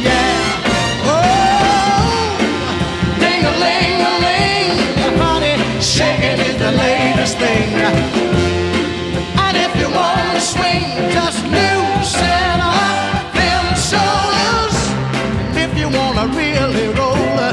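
Upbeat rock-and-roll song with a steady beat, in a stretch between its sung verses.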